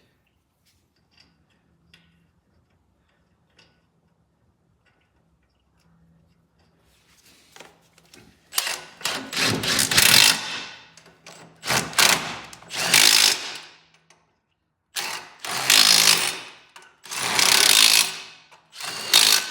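Impact wrench tightening the wheel's lug nuts in five or six loud bursts of a second or two each, starting about halfway through.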